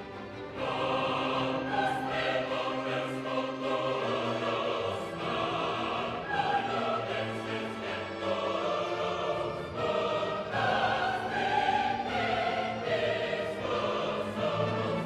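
Background music: choral, classical-style singing with orchestral accompaniment.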